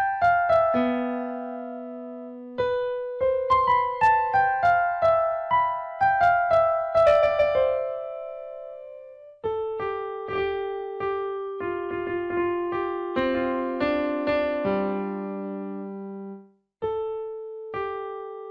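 Background music played on a piano-type keyboard: a slow melody of single struck notes, each fading away, with a short break about sixteen seconds in.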